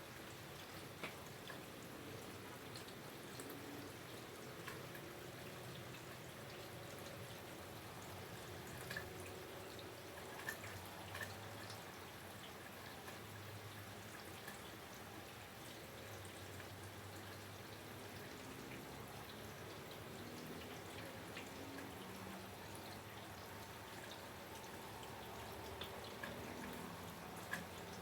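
Faint steady rain with water dripping, single drops ticking sharply now and then.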